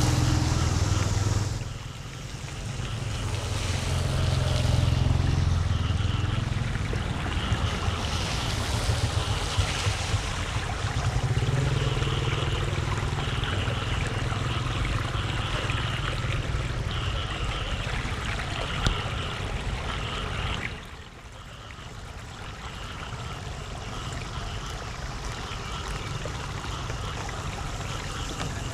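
Floodwater rushing and trickling into a street storm drain, a steady watery noise with wind on the microphone. The sound drops suddenly about two seconds in and again near 21 seconds.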